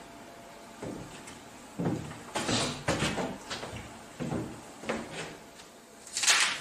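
Irregular scrapes, rubs and knocks as a whiteboard is wiped with a duster and the duster and a marker are handled, with a louder scrape about six seconds in.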